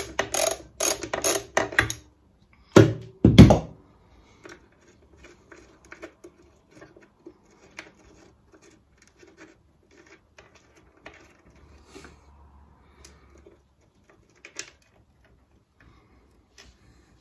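Socket ratchet clicking in quick strokes as a bolt holding the Suffolk Super Colt's engine is undone, stopping after about two seconds. Two loud knocks follow, then faint small clicks and scrapes of tools and metal parts being handled.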